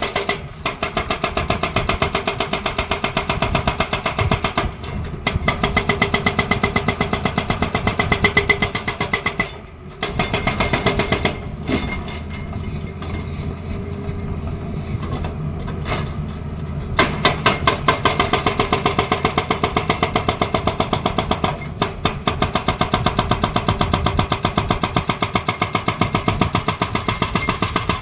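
Excavator-mounted hydraulic breaker hammering with rapid, regular blows over the diesel engine. It stops for a few seconds in the middle, leaving the engine running, then starts hammering again.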